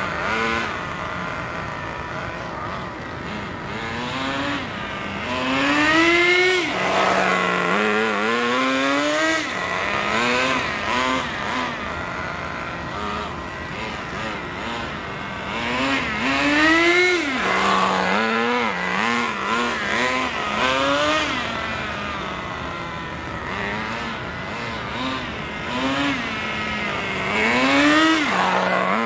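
Small two-stroke glow-fuel engine of a nitro RC car idling and being revved over and over: three big rising-and-falling revs about ten seconds apart, with shorter blips of throttle in between.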